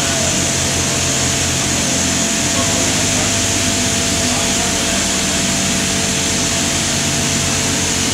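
Loud, steady machinery noise on an offshore drilling rig's drill floor: a low engine-like rumble under a constant hiss, with a couple of steady whining tones. The low rumble changes pitch about two and a half seconds in.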